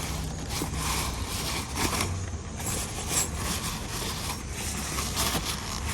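Cloth rubbing and scraping against a stainless steel grinder as it is wiped dry, in irregular scratchy strokes over a low steady hum.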